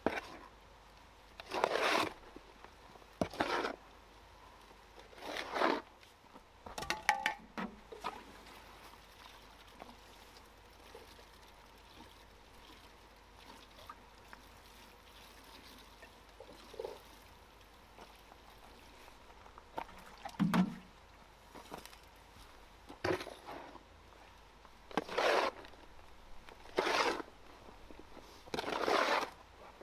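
Water poured onto dry soil in short splashes, about nine of them, with a long pause in the middle, to moisten it.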